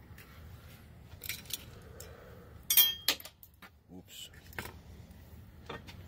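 Small clicks and metallic clinks of mounting hardware and wiring being handled at a truck door's mirror mount. The loudest is a sharp click with a brief metallic ring about three seconds in; the others are light taps.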